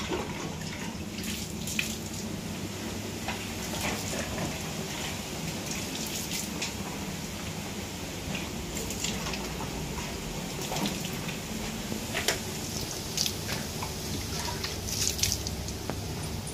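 Water splashing and dripping into a steel bucket as a cow's udder and teats are washed by hand. The splashes come irregularly, a second or two apart.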